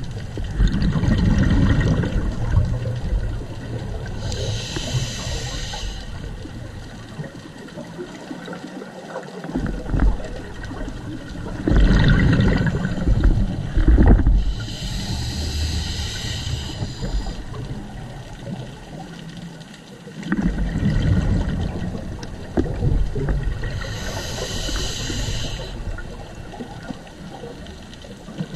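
Scuba diver breathing through a regulator underwater, heard three times over: each time a low bubbling rumble from the exhaled air, then a few seconds later a hissing inhale through the regulator.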